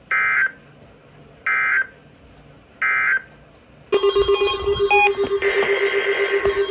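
NOAA Weather Radio EAS/SAME digital data bursts: three short, identical warbling bursts a little over a second apart, the end-of-message code that closes a required weekly test. About four seconds in, a weak, static-laden weather-radio signal cuts in with a steady buzz and tones.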